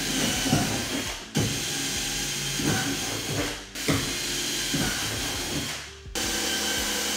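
Cordless drill run in several bursts, its whine rising in pitch as the trigger is squeezed, opening up the wing-mount holes in the trunk lid and the plastic beneath with a larger bit. It stops briefly about a second in, again after three and a half seconds, and near six seconds, then runs at a steadier speed.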